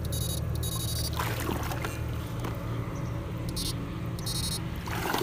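Backpack electrofishing unit buzzing, its high electronic whine switching on and off several times as the current is pulsed through the poles, over a low steady hum. Water swishes around the wading legs and the probe.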